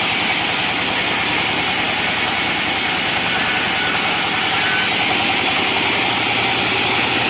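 Band sawmill machinery running steadily, a continuous engine drone with a hissing blade-and-motor noise that does not change.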